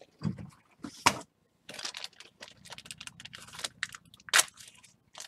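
Rustling and crinkling of plastic and foil trading-card packaging being handled, with scattered sharp clicks and taps. The sound cuts out completely for a moment about a second and a half in.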